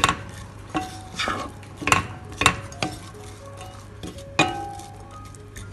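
Wooden spatula stirring diced onions in a pot, scraping and knocking against the pan in irregular strokes, with a few louder clacks.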